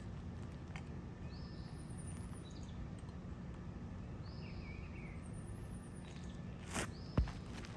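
Birds chirping several times over a steady low outdoor rumble, with a sharp knock near the end.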